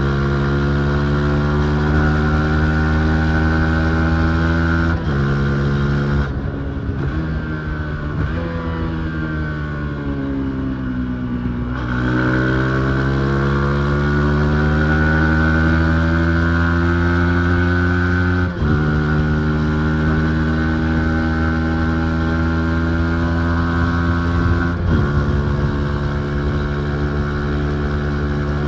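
Yamaha MT-15's single-cylinder engine being ridden. It holds steady revs, drops in pitch as it shifts up about five seconds in, then the revs fall for several seconds off the throttle. It then accelerates again with a rising pitch and shifts up twice more.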